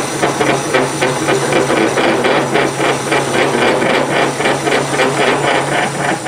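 Metal lathe taking a facing cut on a cylinder-head part, the tool bit chattering in an even rhythmic pulse of about four strokes a second over the steady hum of the lathe motor. The cut is too deep for a setup that is not rigid enough.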